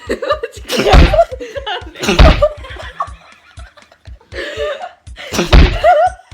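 A man sneezing loudly three times in a row, about a second in, just after two seconds and near the end, with laughter between. The sneezes are set off by a twisted tissue (kōyori) left inside his nostril, which keeps tickling and sets off sneeze after sneeze.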